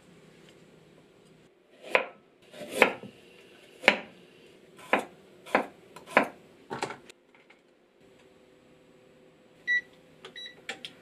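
Kitchen knife slicing garlic cloves on a wooden cutting board: about seven separate, unhurried cuts. Near the end an electric cooktop's control panel gives one high beep, then two shorter ones, as the hob is switched on.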